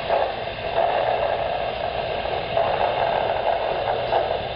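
Backyard Brains SpikerBox speaker hissing and crackling like radio static: the amplified nerve firing picked up by electrodes in a severed cockroach leg, swelling briefly a few times as the leg's spines are touched with a wooden stick.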